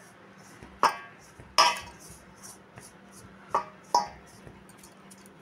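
Stainless steel mixing bowl clinking four times as a besan mixture is gathered together in it, each knock ringing briefly.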